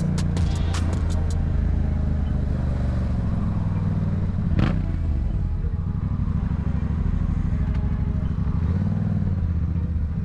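A 2022 Yamaha MT-07's 689 cc parallel-twin engine with an aftermarket Black Widow exhaust, heard from the rider's helmet while riding. The engine runs at varying revs, with a brief rise and fall near the end. There is a run of fast ticks in the first second and a single sharp knock a little under halfway.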